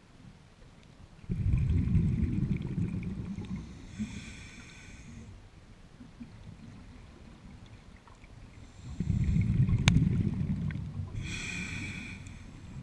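Underwater scuba breathing through a regulator: two breath cycles, each a long low rush of exhaled bubbles followed by the hiss of the regulator on the inhale, with a single sharp click about ten seconds in.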